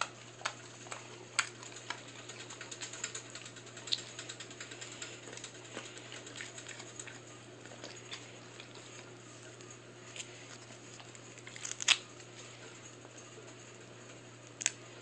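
Pit bull chewing a piece of beef jerky: quiet, irregular small clicks scattered throughout, the loudest ones near the end.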